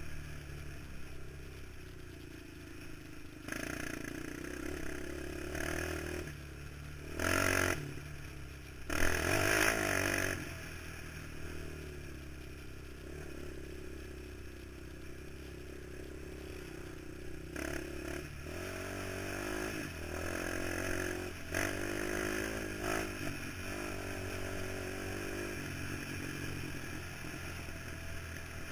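ATV engine running while riding a rough dirt trail, its pitch rising and falling with the throttle. Two short, loud rushes of noise come about seven and nine seconds in.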